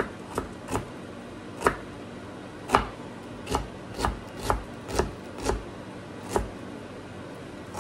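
Kitchen knife chopping onion on a cutting board: about eleven sharp, unevenly spaced chops, cutting it very fine.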